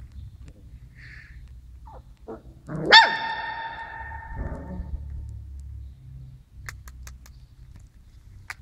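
A Labrador puppy gives one high, sharp bark about three seconds in. Its pitch shoots up and then holds and fades over about a second. A couple of fainter short squeaks come just before it.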